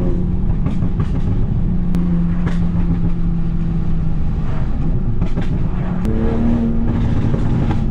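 Toyota Supra's engine and exhaust running at steady cruising revs on the road, heard from the car being driven. The revs step up about six seconds in, and a few short sharp clicks come through along the way.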